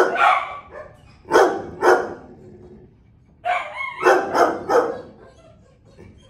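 Dogs barking in shelter kennels: sharp single barks, two near the start and two more a second or so later, then, after a short pause, a quick run of four or five barks.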